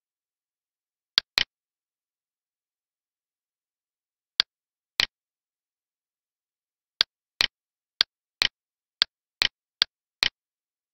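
Six pairs of sharp clicks against dead silence, each pair a short click followed a moment later by a second one; the first pairs are seconds apart, and from about seven seconds in they come roughly once a second.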